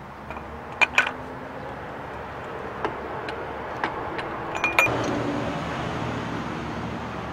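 Metal tools clicking and clinking on a front wheel hub's bearing lock nut: two sharp clicks about a second in, single lighter ticks after, then a quick cluster of clicks near the middle. A steady hiss follows and slowly fades.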